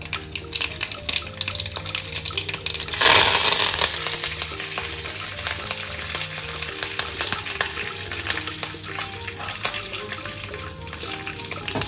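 Mustard seeds crackling and popping in hot oil. About three seconds in, a sudden loud burst of sizzling as curry leaves and green chillies hit the oil, settling into a steady fry for the tempering.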